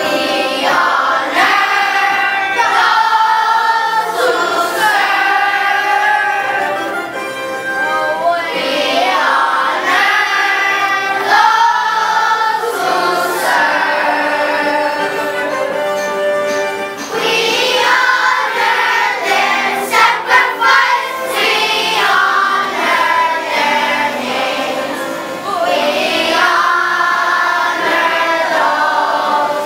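A group of young schoolchildren singing a song together in chorus. A few short sharp knocks or claps cut through about twenty seconds in.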